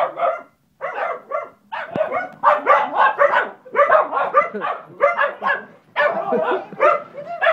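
Puppies barking in quick, repeated barks, several a second, with a short pause just under a second in. They are barking at a moving remote-control car.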